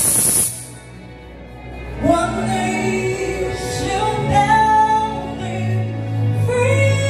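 Loud music cuts off about half a second in; from about two seconds in a woman sings alone, holding long, sliding notes.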